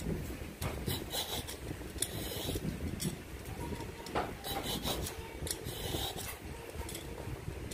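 Vegetable peeler scraping the ridged skin off an angled luffa (patola) in repeated strokes, roughly one a second.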